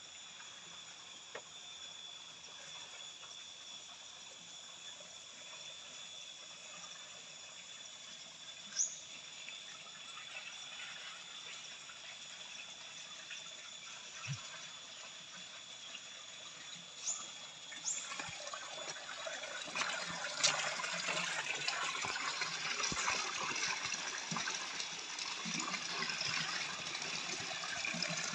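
Spring water pouring from three pipe spouts into a concrete basin, splashing steadily and growing louder over the last third. Before that, a faint steady insect hum with a few short chirps.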